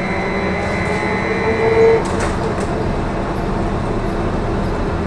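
Moving trolleybus heard from inside the cabin: a steady road rumble with a high, steady electric whine that cuts off about two seconds in, just after a brief louder tone.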